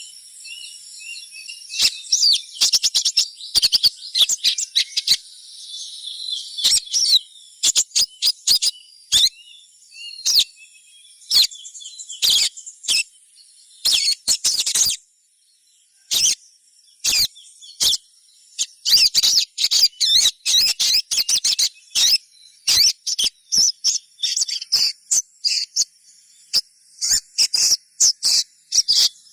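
Little spiderhunter (sogon) giving rapid, sharp high chirping calls in dense runs, with a brief pause about halfway; the chirping call of young birds used as a lure to set other spiderhunters calling. A steady high insect drone runs beneath.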